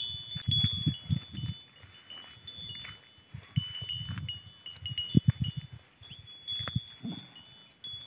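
Goats pulling at and eating from a hand-held leafy branch: irregular soft rustles and thumps, sharpest about five and seven seconds in. Over them a high ringing chime recurs throughout, two close pitches alternating.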